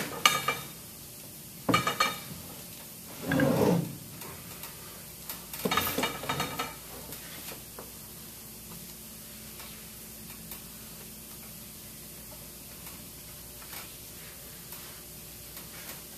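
Metal knocks and clunks as the stainless-steel motor assembly of a CheckPoint 8428 chemical injection pump is turned over and set down on a wooden workbench. There are about four handling sounds in the first half: sharp knocks with a little ringing and one duller thud. After that there are only faint small ticks over room tone.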